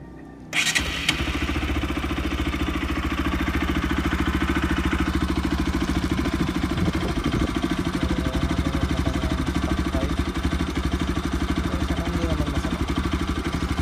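Kawasaki Rouser RS200 single-cylinder engine idling steadily through its stock exhaust pipe. The sound comes in suddenly about half a second in, then holds an even pulsing beat at a constant pitch.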